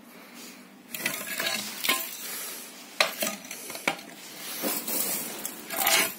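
Gritty scraping of a tool through crumbly sand-cement screed mortar, in a string of uneven strokes, with a sharp knock about three seconds in and the loudest scrape near the end.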